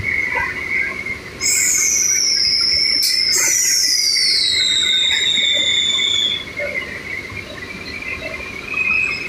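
Factory machinery running with a steady high whine. About one and a half seconds in, a loud high-pitched whistle starts that glides slowly downward in pitch, fading out around six seconds in, with a single click in the middle.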